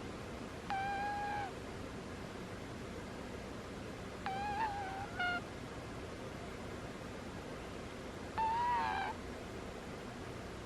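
Cat snoring with a squeaky, whistling note on each breath: three short squeaks, each under a second long, about every four seconds.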